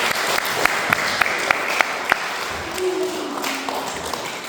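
A roomful of young children applauding. A few sharp single claps stand out over the first two seconds, then the clapping thins and dies away near the end.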